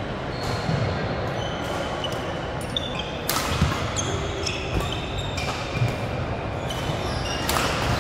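Badminton doubles rally on an indoor court: rackets strike the shuttlecock with sharp cracks, the two loudest a little under halfway and near the end, amid short high squeaks of court shoes on the floor. Under it runs a steady hall background.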